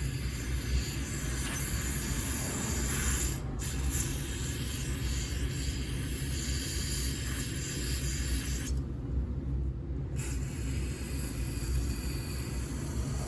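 Spray hissing in long blasts during carburetor cleaning, with a brief break a few seconds in and a longer pause past the middle, over a steady low rumble.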